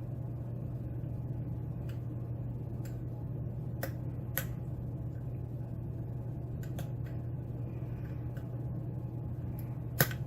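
Sparse, irregular light clicks of a lock pick probing and setting pins in a pin-tumbler lock under tension, over a steady low hum. A sharper click comes near the end, which the picker calls a little click off of pin 5.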